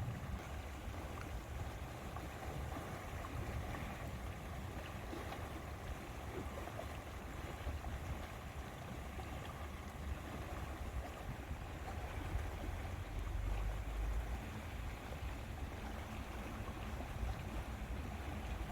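Outdoor wind rumbling on the microphone, with a soft, even hiss above it; a stronger gust about thirteen to fifteen seconds in.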